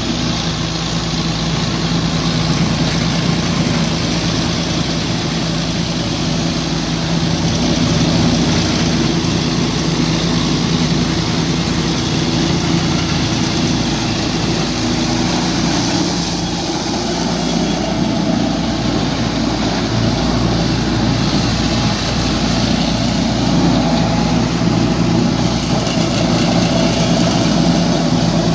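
Tractor diesel engine running steadily under load while driving a rear-mounted straw chopper whose spinning rotor shreds dry crop stubble: a continuous engine drone with a dense hiss of chopping over it.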